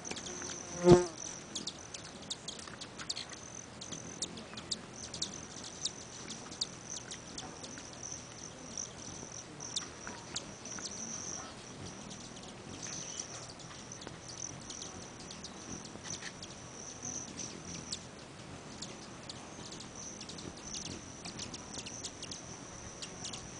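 Hummingbirds buzzing at feeders, a high-pitched whirring wing trill that comes and goes, with many quick high clicks. A short loud pitched sound about a second in.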